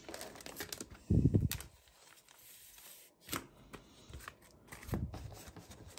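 Paper and plastic sleeves rustling and crinkling as comics and a print are handled in a cardboard box, with scattered small clicks. A dull low thump about a second in is the loudest sound.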